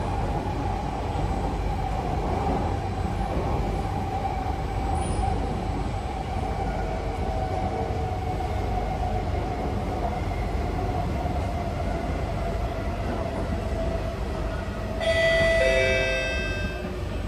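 Kawasaki C151B metro train heard from inside the carriage: a steady rumble with a motor whine slowly falling in pitch as the train slows. About fifteen seconds in, a short burst of several high tones rings for a couple of seconds.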